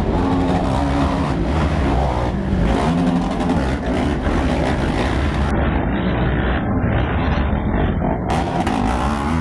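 Racing quad bike engines revving hard and passing, their pitch rising and falling with the throttle as the riders take the jumps.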